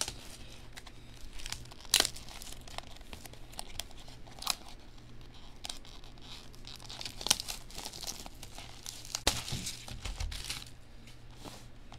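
Clear plastic shrink wrap being torn off a cardboard trading-card box and crumpled: crinkling and tearing with a few sharp clicks.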